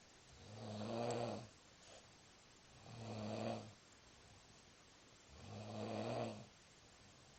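A heavily drunk man snoring in deep sleep: three snores about two and a half seconds apart, each a low pitched drone lasting about a second that swells louder before stopping.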